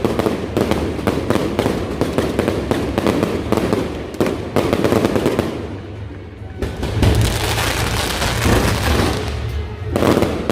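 Firecrackers crackling in a dense rapid string, then, after a brief lull about six seconds in, deep low booms of aerial fireworks.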